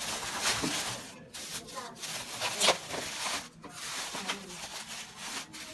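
Thin plastic carrier bags rustling as a hand rummages through groceries inside them, in short irregular bursts.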